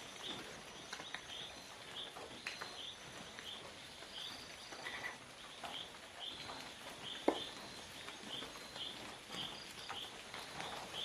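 Forest ambience: a short high call of a bird or insect repeated about twice a second, over a faint steady high tone, with scattered sharp clicks, the loudest about seven seconds in.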